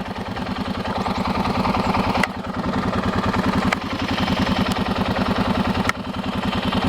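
Farm tractor engine running steadily while pulling a square hay baler, with a fast even pulse of about ten beats a second.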